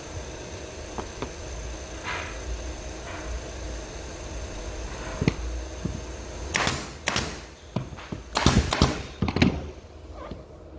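Pneumatic nail gun (air tacker) firing several sharp shots into wooden molding pieces, in quick clusters during the second half, over a steady low hum.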